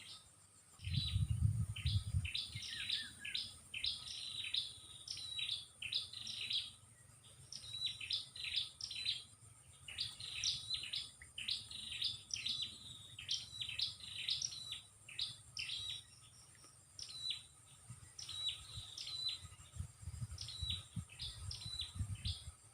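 A songbird chirping: quick runs of short, high notes, repeated over and over, with a faint steady insect buzz behind. Low rumbling knocks come about a second in and again near the end.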